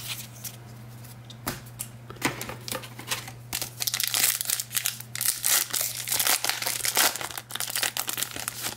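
Foil trading-card pack wrapper crinkling as it is handled and torn open. A few sharp rustles come first, then dense crinkling through the second half.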